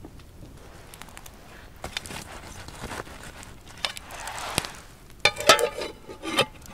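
Campfire crackling with small scattered pops, then a metal camping pan handled on the fire and its metal lid clattering and rattling into place about five seconds in; the lid's clatter is the loudest sound.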